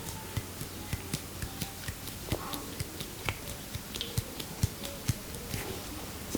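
A masseur's hands tapping and slapping on the head during an Indian head massage: a run of sharp, irregular taps, about three or four a second.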